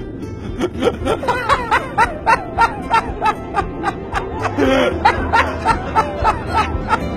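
Hearty, contagious laughter: a string of rapid 'ha-ha' bursts, about three a second, starting about a second in, over background music.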